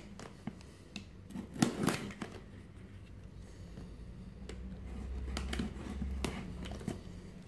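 Handling of a shipping parcel as it is opened: scattered sharp clicks and knocks, among them a plastic box cutter being put down, and soft rubbing of a hand on the box's lid.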